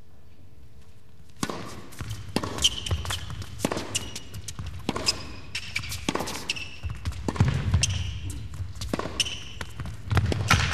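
Tennis rally on an indoor hard court: sharp racket strikes and ball bounces at an uneven pace, with short high shoe squeaks between them. The rally starts after about a second and a half of faint steady hum.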